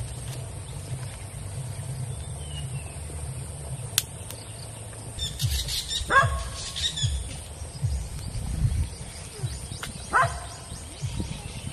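A dog barking and yelping in short falling-pitch calls: a cluster about six seconds in and one more near ten seconds, over a steady low rumble.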